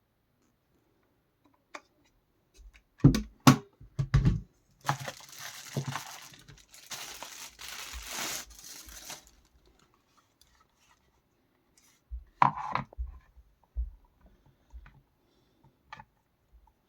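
Packaging being handled during unboxing: a few sharp knocks, then about four seconds of tearing and crinkling, then more knocks and clicks.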